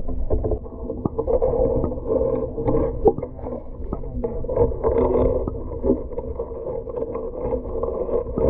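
Muffled underwater sound from a camera submerged in a pond: a steady low rumble of water with scattered small clicks and knocks.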